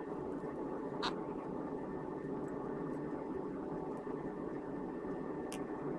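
Steady low background noise with two small, sharp clicks, about a second in and near the end.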